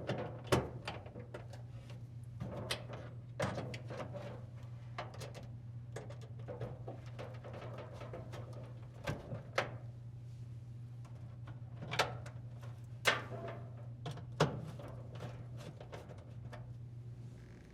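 Scattered clicks and knocks of screws, a screwdriver and plastic dryer parts being handled as screws are rethreaded to secure an assembly in the dryer, over a steady low hum.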